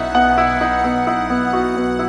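Instrumental background music, with held notes that change every half second or so.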